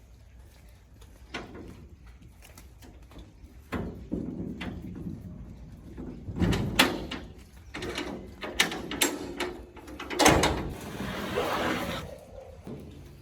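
Irregular knocks and clatter of hard objects being handled, with two louder thumps, one about six and a half seconds in and one about ten seconds in, and a short scrape near the end.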